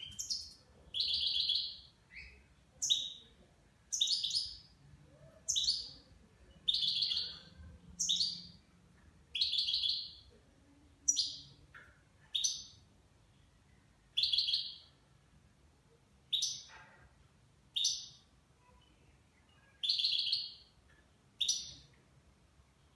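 Caged nine-month-old European goldfinch calling: short, bright, high-pitched notes repeated about every second and a half, with pauses between.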